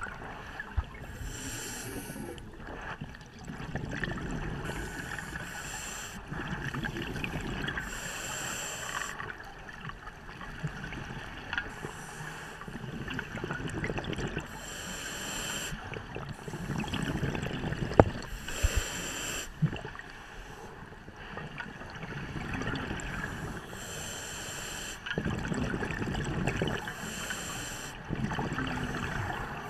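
Scuba diver breathing through a regulator underwater: a hiss on each inhale and a low rumble of bubbles on each exhale, repeating every few seconds, with a few faint knocks.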